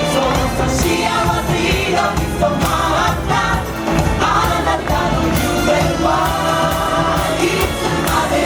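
Music with a chorus of voices singing, at a loud and steady level.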